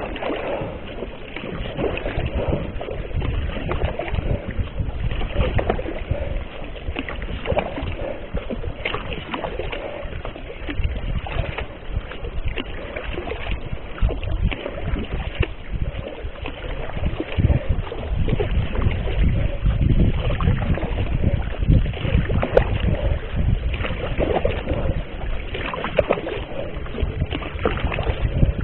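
Mirage sea kayak being paddled: double-bladed paddle strokes dipping and splashing in the water, with water washing along the hull. A low rumble of wind on the microphone runs underneath.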